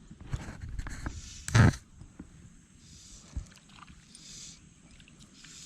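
Small knocks and handling noises in a fishing boat on the water, with one short, loud thump or splash about a second and a half in.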